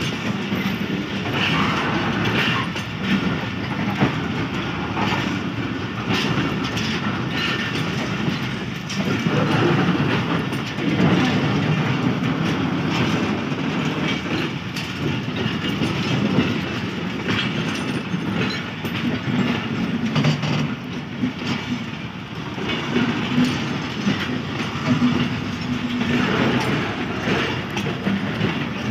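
Passenger coaches rolling past on the track, their wheels clicking and clattering irregularly over rail joints. A low hum comes in at times.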